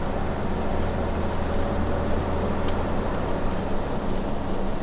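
Ford Cargo 2520 truck's diesel engine running steadily under way, heard from inside the cab as a constant low drone.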